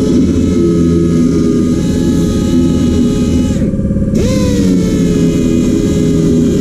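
A machine's motor running steadily with a loud hum. A little past the middle it briefly breaks off, then comes back with a whine that slides down in pitch.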